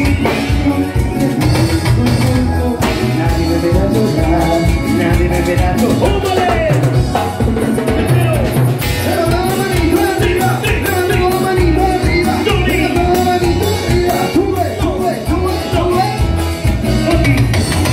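A live band playing Latin dance music: a singing voice over a steady, driving bass-and-drum beat, loud and continuous.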